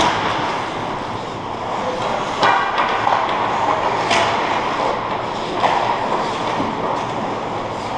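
Ice hockey play in a rink: skate blades scraping the ice over a steady rink noise, with sharp knocks of sticks and puck about two and a half and four seconds in.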